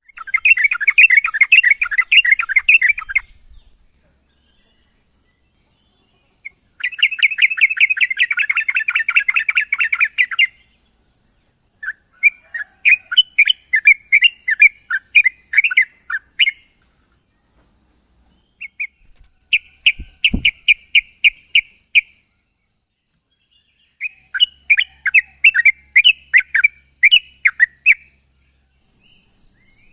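Yellow-vented bulbul (trucukan) song: bursts of rapid bubbling, chattering notes, each a few seconds long, five times over, with short pauses between. A steady high hiss runs under the first two-thirds, stops, and returns near the end; a single dull thump sounds about two-thirds through.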